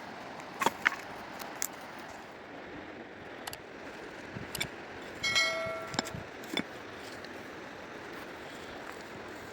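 A few scattered sharp knocks and clicks over a steady rushing background, with one short ringing clang a little past the middle.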